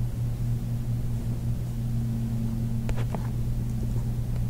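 A steady low background hum, with a few short clicks about three seconds in and one more near the end.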